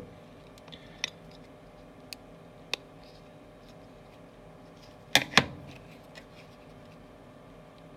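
Light handling clicks as an iPhone LCD panel is fitted into an aluminium holding mould, with a sharper double clack about five seconds in as the mould is set down on a steel bench. A faint steady hum runs underneath.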